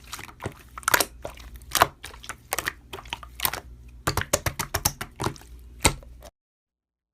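Slime being played with: an irregular run of crackling clicks and pops that cuts off abruptly about six seconds in.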